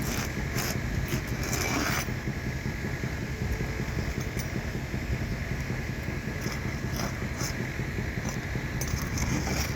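Scraping and scattered light clicks of work on asphalt roof shingles, with the scraping strongest in the first two seconds, over a steady low rumble.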